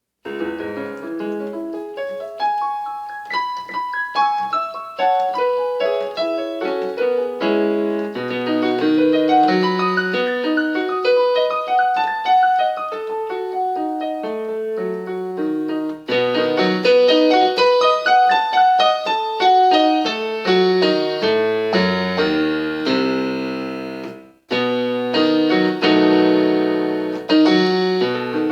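Solo piano playing a piece, a melody of single notes over lower bass notes, which stops abruptly for a moment near the end and then resumes.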